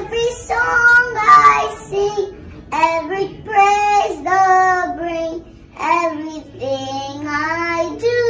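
A young girl singing solo, in held notes that glide between pitches in short phrases.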